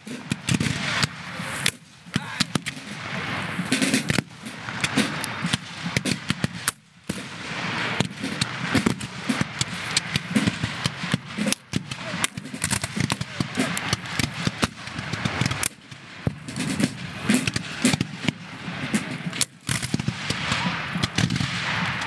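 Black-powder rifle-muskets firing continuously, a dense, irregular crackle of many shots from a line of infantry, with a few short lulls between volleys.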